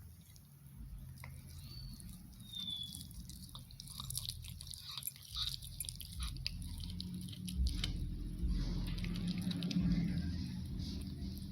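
Cat chewing and biting a piece of raw chicken meat, with many small irregular clicks. She is eating only the meat, not the bone.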